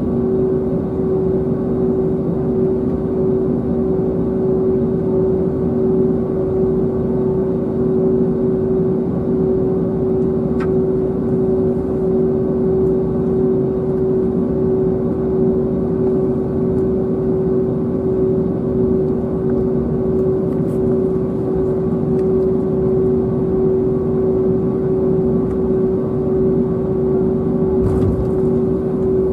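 Cabin noise inside an Airbus A321neo taxiing, its Pratt & Whitney PW1100G geared turbofans at idle: a steady hum with two held droning tones over a low rumble, and a faint click about ten seconds in.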